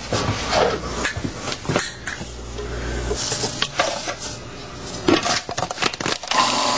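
Clinks and knocks of kitchen containers and utensils being handled as sugar and cilantro go into a food processor bowl. Near the end the food processor starts running with a steady whirr to grind them.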